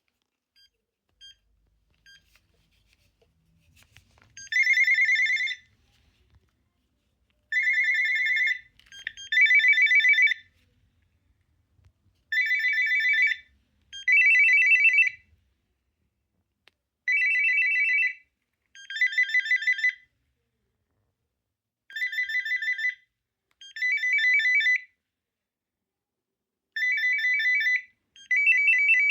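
Panasonic KX-TGBA20 cordless phone handset ringing with an electronic trilling ringtone, starting about four seconds in. The rings come in pairs of bursts about a second long, the pair repeating every five seconds or so.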